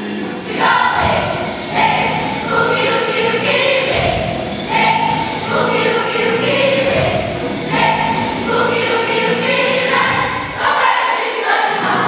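A children's choir singing an English song together, with musical accompaniment.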